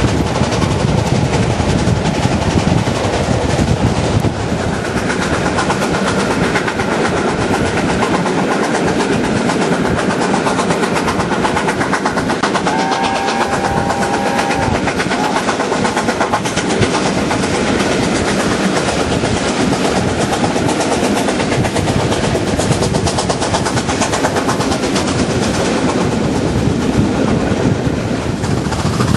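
Two-cylinder BR Standard Class 7 'Britannia' Pacific steam locomotive 70013 'Oliver Cromwell' working hard up a steep bank with nine coaches. Its exhaust is heard from an open carriage window together with wheel noise and rushing air. A short high tone sounds about halfway through.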